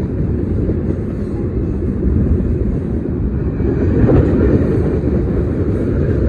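Two CSX freight trains, a manifest and an intermodal, passing at once close by: a steady, loud rumble of rail cars rolling on the track, swelling a little about four seconds in.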